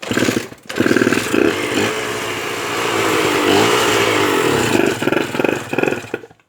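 Honda NSR150RR's 150 cc single-cylinder two-stroke engine running after long storage, its revs rising and falling, then cut off near the end. The mechanic judges from it that the balancer-shaft and crankshaft bearings are noisy and the balancer-shaft seal is leaking.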